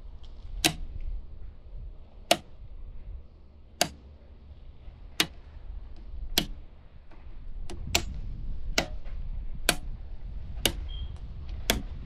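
Circuit breakers in a home's main electrical panel being switched back on one at a time, each handle giving a sharp snap. About ten snaps come every second or so, closer together toward the end, as the branch circuits are turned back on after the main.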